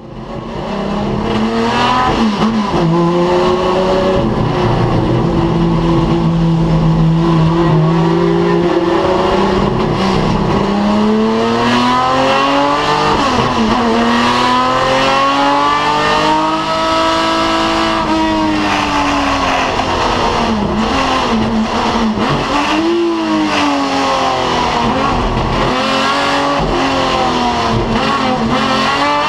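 BMW 3.0 CSL racing car's straight-six engine heard from onboard, running hard on track: its pitch holds, climbs and drops again and again as the car accelerates, shifts and slows for corners.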